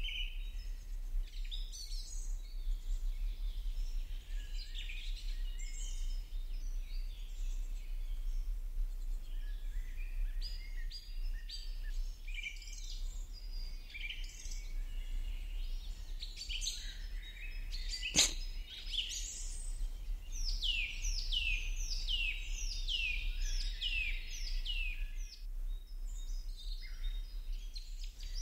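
Small birds chirping and twittering throughout, with a run of quick, falling chirps near the end. A single sharp click comes about two-thirds of the way through, over a steady low hum.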